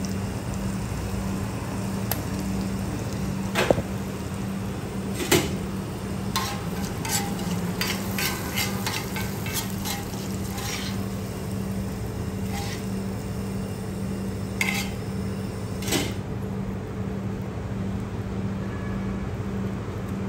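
Steel spatula clinking and scraping on a flat iron griddle, with single strikes, then a run of quick clinks about six to eleven seconds in, and a few more before it stops. Under it all runs a steady low hum.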